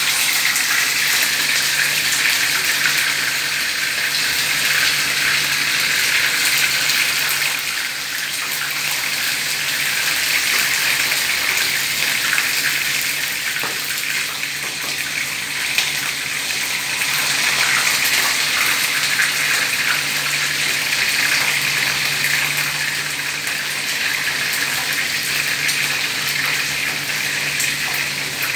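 Marinated chicken wings sizzling steadily in hot oil in a frying pan, pan-fried before being simmered into adobo, with a couple of light clicks of metal tongs.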